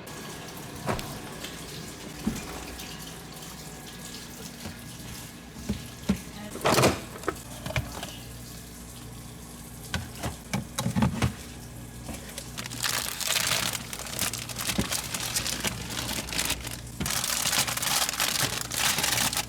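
Kitchen tap running into a sink in two stretches in the second half, after a few scattered knocks and clatters of kitchen handling, over a faint steady hum.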